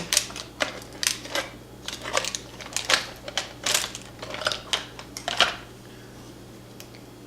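Small metal tools clicking and clattering as they are handled and knocked about on a work surface, about a dozen sharp clicks over five seconds, then stopping.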